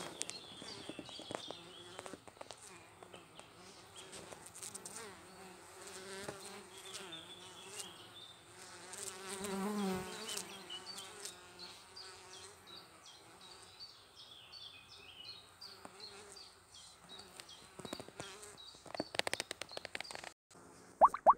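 Honeybees buzzing at the entrance of a log hive. About halfway through, one flies close past and its hum grows louder and wavers in pitch. A cluster of sharp clicks comes near the end.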